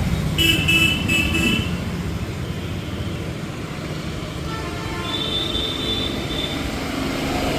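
Road traffic rumbling past, with a vehicle horn beeping three times in quick succession about half a second in and another horn sounding around five seconds in.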